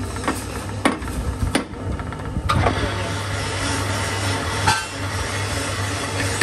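Four sharp hammer taps on a large steel hub clamped in a lathe chuck, tapping it true in the chuck, over a steady low machine hum. One more strike rings briefly near the end.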